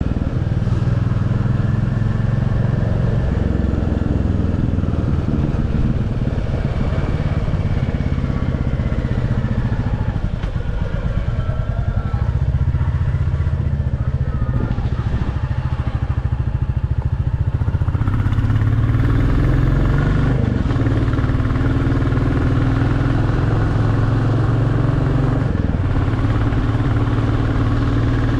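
Royal Enfield Classic single-cylinder engine running steadily on its stock exhaust, a continuous low, even thump with a slight change in tone about two-thirds of the way through.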